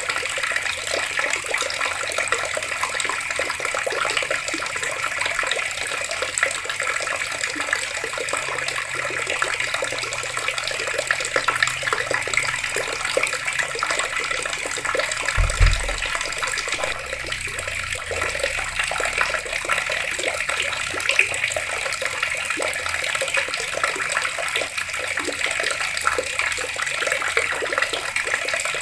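Water running steadily from taps and splashing, a constant hiss, with one short low thump about halfway through.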